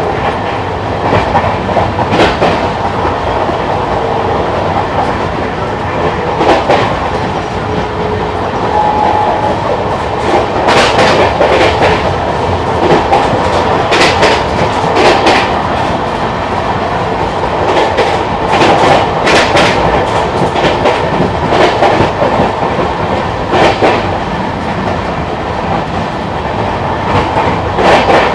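Passenger express train running at speed, heard from on board: a steady rumble with the wheels clacking irregularly over the rail joints.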